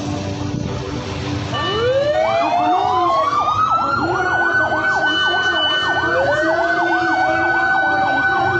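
Several emergency vehicle sirens sounding together, starting about a second and a half in: wailing tones that rise in pitch and then hold, over a fast up-and-down yelp, with another siren winding up near the end.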